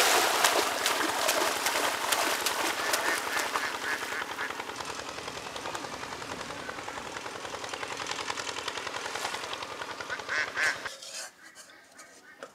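Pond water splashing and sloshing as a person bathes and swims. It is loudest at the start, eases off, and cuts off suddenly about eleven seconds in.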